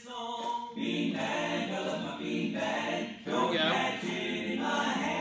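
A man singing a children's song unaccompanied, holding long drawn-out notes with few clear words.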